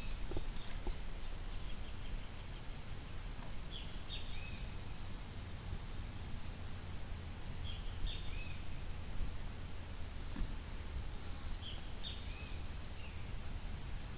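Open-air ambience: birds give short, scattered chirps every second or two over a low, steady rumble.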